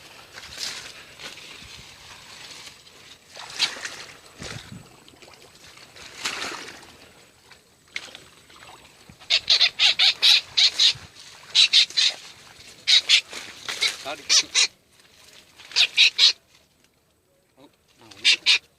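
An animal calling: groups of short, high-pitched calls repeating for several seconds, after scattered rustling noise.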